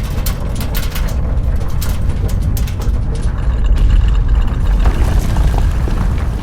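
Deep, continuous earthquake rumble, swelling a little about halfway through, with scattered crackles and small cracking snaps over it in the first half.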